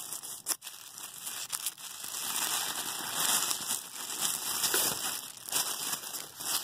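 Tissue paper crinkling and rustling as it is handled and unfolded by hand. The crinkling is continuous, with a brief lull about half a second in, and is busiest in the second half.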